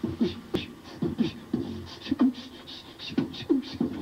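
A person beatboxing through cupped hands: a steady beat of low, dropping booms alternating with short hisses like a hi-hat.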